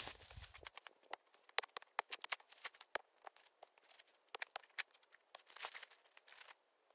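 Dry fallen leaves and twigs crackling and rustling as a shovel and hands work through the leaf litter, in irregular crisp crackles that stop shortly before the end.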